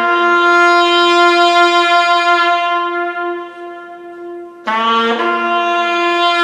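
Solo brass instrument playing slow, long held notes: a low note rising to a higher one that is held and fades away, then the same low-to-high pair enters again just before five seconds in.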